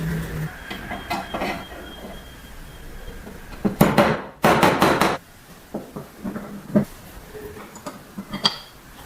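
Small metal parts clinking and knocking as they are handled, with a louder quick clatter for about a second and a half near the middle.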